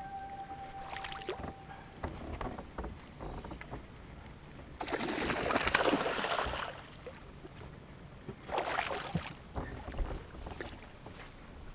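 Hooked bass thrashing and splashing at the water's surface beside the boat. The splashing is loudest for about two seconds starting about five seconds in, with shorter splashes near the start and about eight and a half seconds in.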